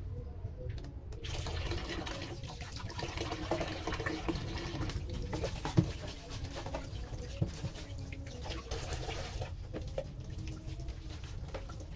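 A kitchen tap runs into a sink while dishes are rinsed by hand. The water comes on about a second in. Plastic bowls and a pan knock against each other and the sink now and then, with one sharp knock about halfway through.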